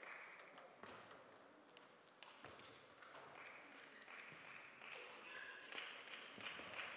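Near silence: faint hall ambience with a few light taps of a table tennis ball, bounced by the server before she serves.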